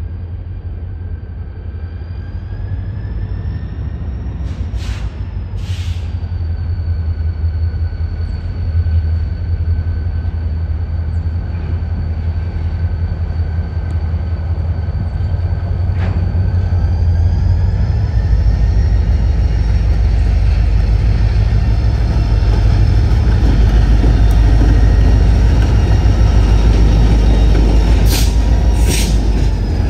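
AVR SD40-2R diesel-electric freight locomotive approaching and passing: its engine drone grows steadily louder, with a thin high whine over it and a few short hisses, two early and two near the end.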